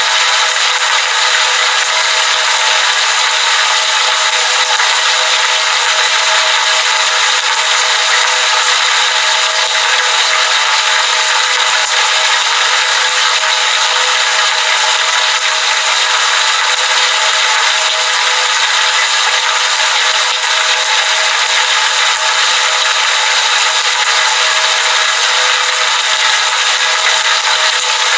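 Heavy rain falling steadily outside a window: a dense, even hiss with no separate drops or pauses.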